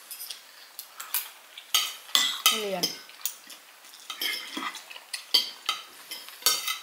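Metal forks and spoons clinking and scraping against ceramic dinner plates as two people eat, in irregular clicks and short scrapes that are busiest about two to three seconds in.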